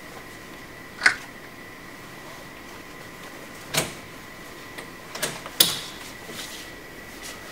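A door being handled: a few separate sharp clicks and knocks of its latch and handle, over a faint steady high hum.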